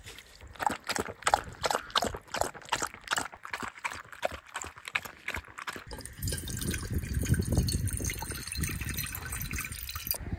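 Water poured from a jug into a funnel, splashing and glugging unevenly. About six seconds in it changes to a steady stream of water running from a hose tap into a stainless steel pot.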